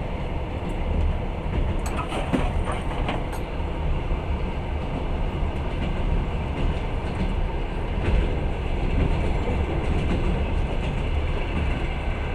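Passenger train carriage rolling along the track, heard from inside the compartment: a steady low rumble of wheels and running gear, with a short run of sharper clicks about two to three seconds in.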